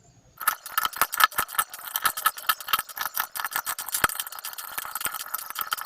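Fast, dense clicking and rattling of small hard plastic parts, many clicks a second, starting about half a second in.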